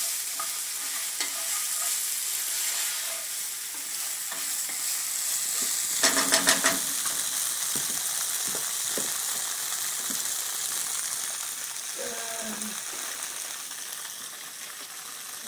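Diced tofu sizzling as it fries in oil in a frying pan. About six seconds in, a wooden spatula stirs it with a short burst of quick scraping and clattering against the pan.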